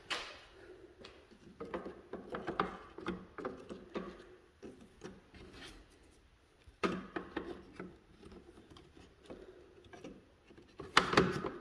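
Scattered light clicks, knocks and rubbing of plastic parts being handled, with a louder clatter about seven seconds in and again near the end.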